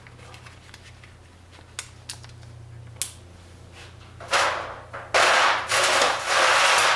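A few light clicks, then loud bursts of plastic rustling through the last few seconds: the clear plastic bag of a new braided stainless brake hose being handled.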